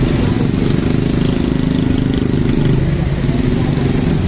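Motorcycle engine running steadily, with a rapid even putter.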